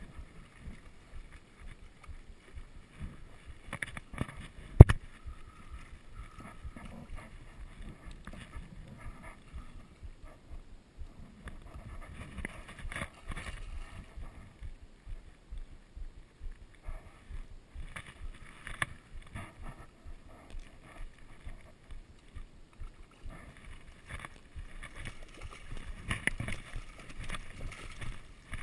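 Handling noise from a spinning rod and reel while a hooked rainbow trout is played, with irregular splashing at the water's surface. A single sharp knock about five seconds in.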